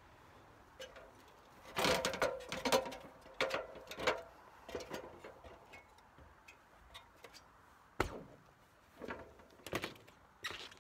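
Irregular knocks and clunks of someone climbing a ladder and stepping onto a steel roof, a cluster of them about two seconds in and a single sharp knock about eight seconds in.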